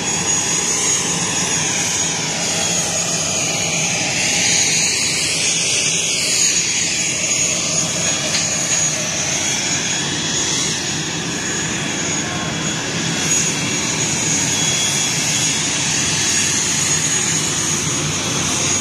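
Aircraft turbine running steadily close by: a loud, continuous rush with a thin high-pitched whine over it.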